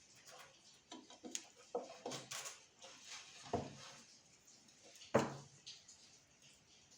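Faint scattered clicks and knocks, with two louder knocks about three and a half and five seconds in.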